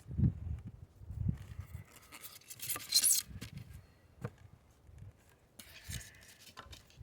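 Handling noises: scattered light knocks and clicks with rubbing and scraping, the loudest scrape about three seconds in and another around six seconds.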